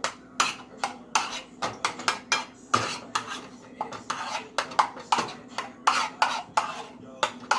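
A spoon scraping and knocking against a pan as eggs are turned over in it: a string of irregular clicks and scrapes, a few a second, with a steady low hum underneath.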